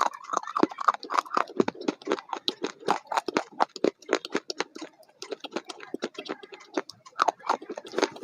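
Close-up chewing of crunchy food: a quick, irregular run of crisp crunches and mouth clicks.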